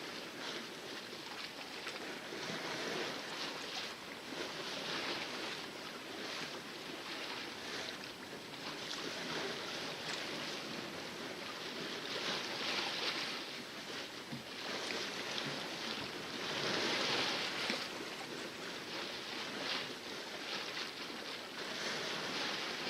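Water splashing and rushing against the hull of a sailboat under sail in calm seas, swelling and easing every few seconds.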